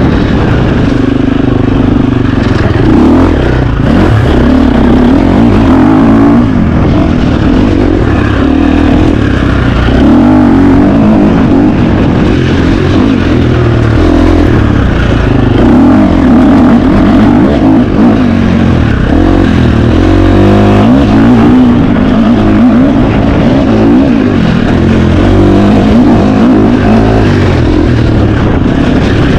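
KTM 350 XC-F single-cylinder four-stroke dirt bike engine ridden hard off-road, revving up and falling back every second or two without a break.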